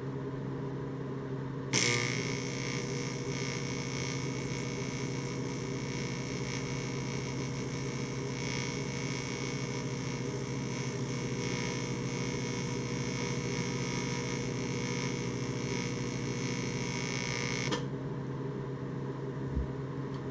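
AC TIG welding arc from a Miller Econotig on aluminum. It strikes suddenly about two seconds in, holds a steady buzzing hiss for about sixteen seconds, then cuts off. A steady hum runs under it throughout. This is the arc that, on the owner's account, only sizzles or burns through instead of making a liquid aluminum puddle.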